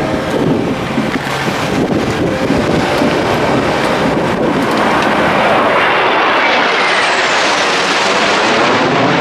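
A four-wheeled armoured car's engine running as it drives close past. From about halfway through, the rising roar of a formation of aircraft flying over takes over as the loudest sound, with a falling whine near the end.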